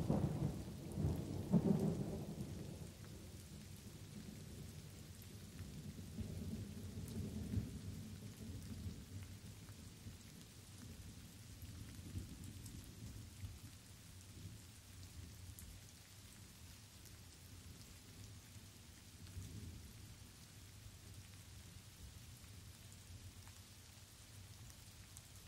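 Thunderstorm with light rain: thunder rumbles loudest in the first two seconds, rolls again at about six to eight seconds and more faintly near twenty seconds, while light rain falls steadily.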